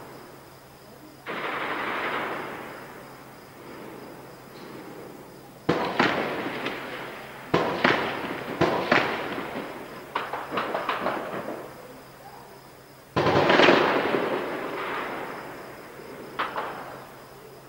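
Shelling: a string of sudden blasts, each trailing off in a long echoing rumble, some coming in quick clusters. The loudest is a heavy boom about 13 seconds in.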